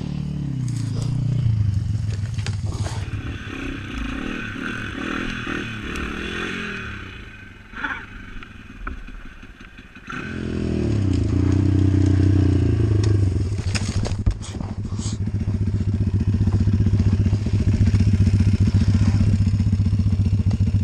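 YX 140 pit bike's single-cylinder four-stroke engine running, dropping low for a few seconds in the middle and then running steadily and louder from about halfway, with a few sharp knocks and clatters.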